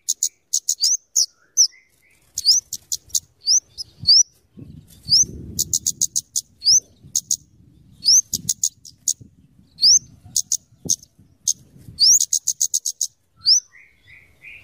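Flowerpecker (the bird called kemade or cabe-cabean) calling: quick runs of sharp, high ticking notes mixed with short rising chirps, coming in rapid bursts with brief gaps between them.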